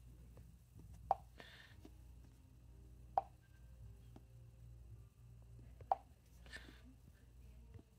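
Three short, sharp taps on an Xtool A80 diagnostic tablet's touchscreen, a couple of seconds apart, as menu items are pressed; a soft hiss follows two of them.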